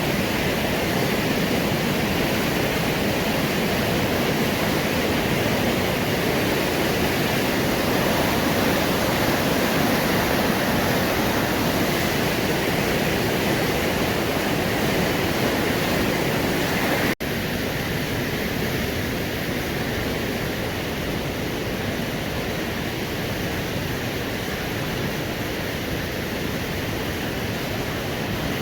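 Steady rushing of river rapids. It briefly cuts out about 17 seconds in and then goes on a little quieter.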